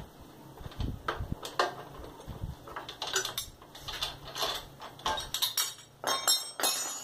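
Metal clinks and clatters of a wrench and steel bolts being handled on a motorcycle engine, in irregular knocks, with brief metallic ringing near the end.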